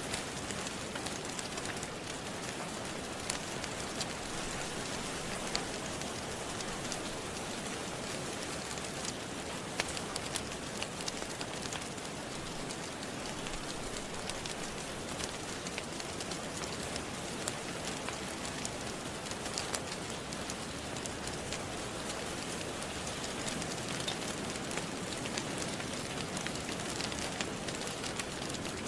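Steady rain with sharp crackles from a wood fire scattered through it.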